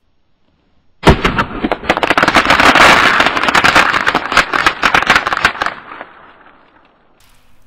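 A sledgehammer blow sets off a heap of colour snappers (bang snaps) about a second in. They go off as a rapid, dense crackle of many small pops that builds, then thins out and dies away over about five seconds.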